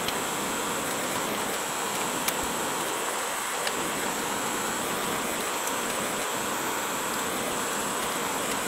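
Propane torch burning with a steady hiss while heating a copper radiator core, with a few faint clicks of pliers on the thin copper fins.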